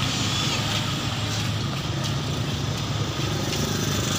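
Steady road traffic: motor scooters and cars passing along the bridge road, with a constant low engine and tyre noise.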